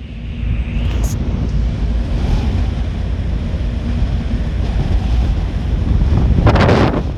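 Wind buffeting the microphone over the low rumble of a river ferry's engine, with a stronger gust near the end.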